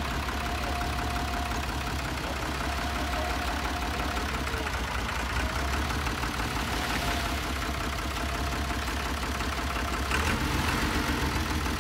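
Tractor engine running steadily at low revs while it drives the hydraulic boat-launch trailer, with a faint high whine that comes and goes. It gets slightly louder about ten seconds in.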